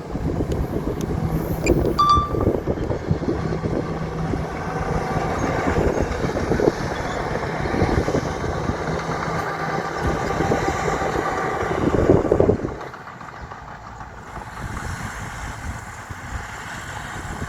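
Heavy diesel earthmoving machinery running under work, with a steady engine drone. A few sharp clanks come about two seconds in, and the sound drops noticeably about thirteen seconds in.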